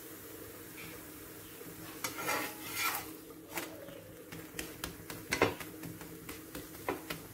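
Metal spatula scraping and clicking against a dosa griddle as a wheat parotta cooks on it. There is a scrape about two to three seconds in, then scattered sharp clicks, over a faint steady hum.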